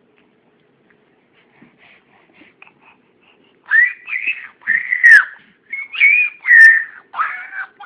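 Pug puppy whining: a string of high, arching cries that start faintly and grow loud about halfway through.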